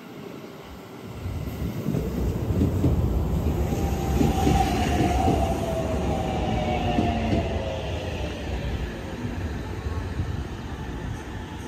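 Aichi Loop Railway electric commuter train arriving at a station: a low rumble of wheels on rail that builds as it pulls alongside. From about four seconds in, a thin whine falls steadily in pitch as the train brakes and slows.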